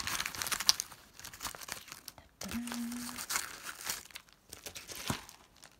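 Crinkling and rustling of a holographic foil bubble mailer and small plastic bags being handled as items are pulled out, busiest in the first two seconds.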